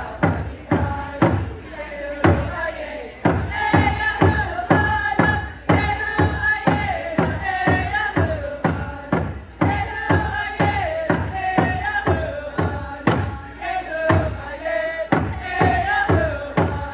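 Tlingit and Haida group singing in unison over a steady hand-drum beat, about two beats a second.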